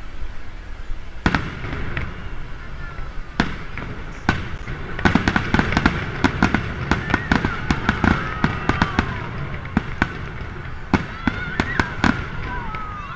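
Aerial fireworks shells bursting overhead: scattered bangs at first, then a rapid run of bangs and crackles from about five to nine seconds in, with more bangs near the end.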